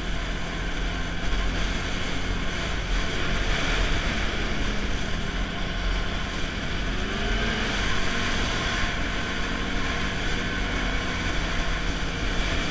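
Snowmobile engine running at a steady cruise under a rushing haze of wind noise on the microphone; the engine note shifts upward briefly about seven seconds in.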